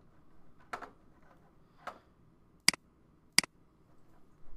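Computer mouse clicks: two soft clicks, then two sharp, louder clicks less than a second apart.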